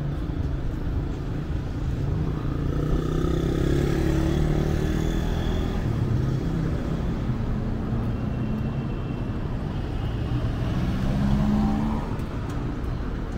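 City street traffic: vehicle engines running and passing, a steady low rumble that swells a few seconds in and again near the end.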